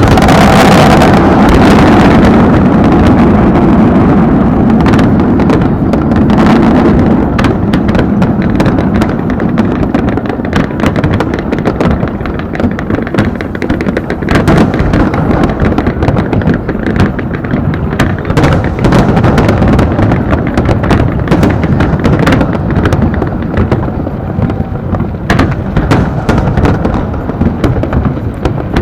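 Aerial fireworks bursting in rapid, overlapping succession: heavy booms and sharp crackling reports with hardly a pause, loudest in the first few seconds.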